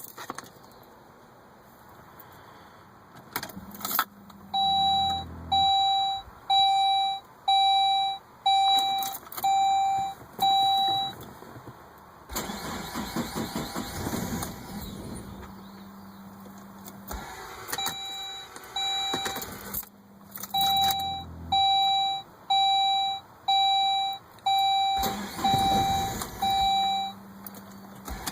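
Saab 9-5 turned over and started twice, each time cranking only briefly before it catches, now that its badly spraying fuel injectors have been dealt with. The loudest sound is the car's warning chime, a run of evenly spaced beeps about one a second, heard twice, in between the starts.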